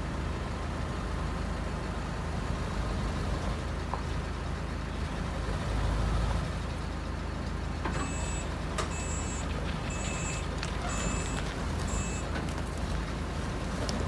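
A heavy engine running with a steady low rumble; about eight seconds in, the flatbed truck's reversing alarm beeps five times, a little under one beep a second, as it backs up.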